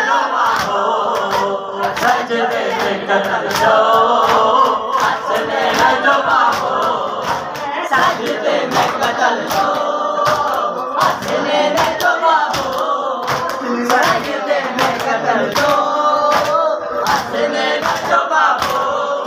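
Men chanting a Sindhi noha (Shia lament) in chorus behind a lead reciter on a microphone, over a steady beat of sharp slaps from matam, hands striking bare chests in time.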